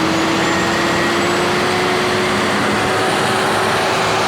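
Massey Ferguson 7614 tractor's diesel engine running at a steady speed after a hard start, with a constant whine over the engine noise.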